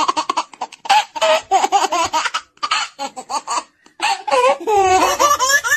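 High, childlike cartoon voices laughing and giggling in quick runs of short pulses with brief pauses. Near the end the laughter climbs in pitch.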